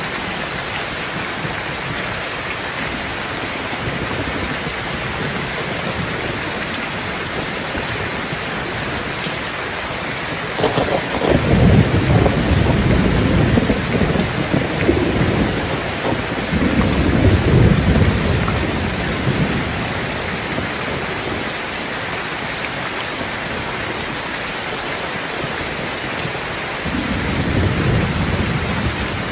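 Heavy rain falling steadily, with three rolls of thunder. The loudest, longest rumble starts about a third of the way in, a second follows soon after, and a shorter one comes near the end.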